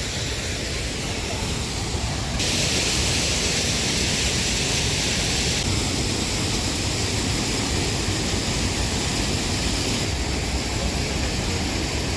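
Steady rush of falling water from the Öxarárfoss waterfall, an even noise that jumps abruptly louder and brighter about two and a half seconds in and shifts level again twice later.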